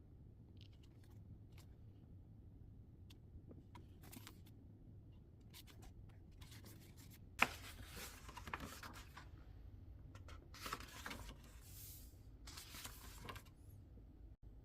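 Book packaging being handled and opened: small ticks and crinkles, then a sharp snap about seven seconds in followed by several stretches of rustling and tearing.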